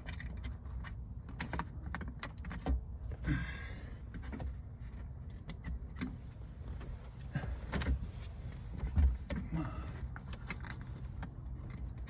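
Plastic trim cover around a car's windshield mirror module being pried and worked loose with a pry tool: irregular clicks, knocks and light plastic rattles, with a short scraping rustle a few seconds in.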